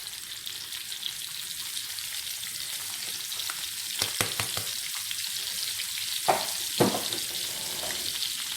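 Peeled boiled eggs sizzling and crackling in melted ghee in a frying pan. A few knocks and scrapes in the pan come about halfway through, with two louder ones a little later.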